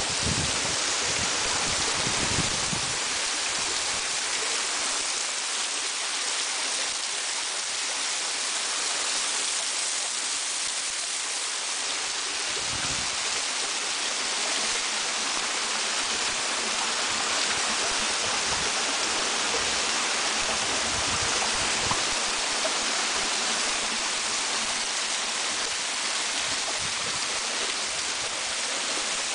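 Waterfall water rushing in a steady hiss, with a low rumble in the first couple of seconds.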